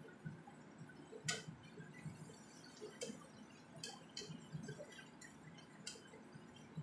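Spatula stirring and scraping shredded chicken in a nonstick frying pan: soft scuffling throughout, with a few sharp clicks of the spatula against the pan.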